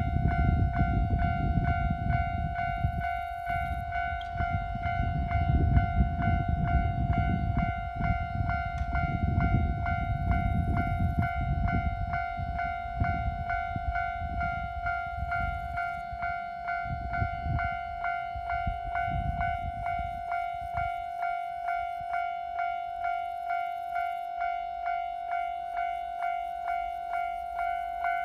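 Railway level-crossing warning bell ringing steadily at about one and a half strokes a second. For the first twenty seconds or so it rings over the heavy low rumble of a passing train, which then dies away, leaving the bell alone.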